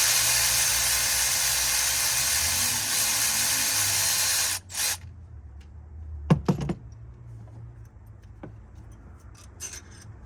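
Cordless power tool with a 13 mm socket running steadily for about four and a half seconds, spinning out a long bolt, then stopping; a few sharp metal clinks follow about six seconds in.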